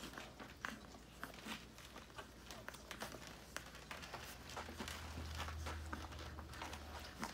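Siberian husky puppies suckling at their mother: faint, irregular wet clicks and smacks, with soft rustling of fur and bedding. A low rumble runs for a couple of seconds in the second half.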